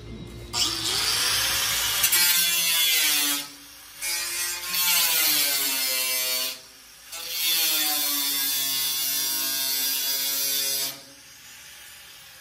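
Small right-angle grinder with an abrasive disc grinding the sheet-steel edge of a pickup bed panel, run in three long bursts with short pauses between them. Its whine sags and rises in pitch as the disc is pressed into the metal and eased off.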